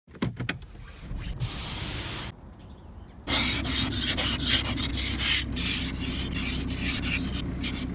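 Ice scraper scraping frost off a car windscreen in quick repeated strokes, starting about three seconds in. Before it, a few sharp clicks and a short hiss.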